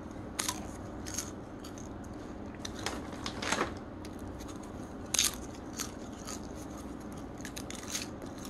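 Someone eating: irregular crisp crunches and bites with chewing, about a dozen in all, the sharpest a little past halfway, over a steady low hum. The sound cuts off suddenly at the end.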